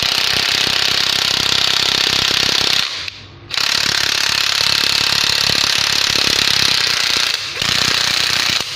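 Ryobi 12V cordless impact driver running with its hammer mechanism impacting rapidly against a bit held by hand. It goes in three spells: about three seconds, a brief stop, a longer spell, then a short last burst. It runs on a weak battery that still drives the hammer.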